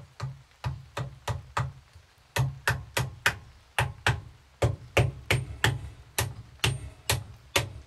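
A glued wooden wedge being driven into the kerf at the top of an axe handle with a wooden mallet, to lock the axe head on. It gives a couple of dozen sharp wooden knocks in quick runs of three to six, about three to four a second.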